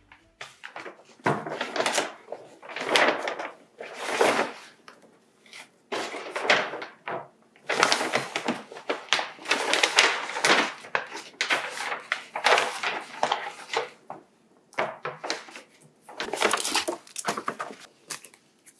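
Brown kraft paper bag rustling and crinkling in irregular bursts as things are handled and taken out of it.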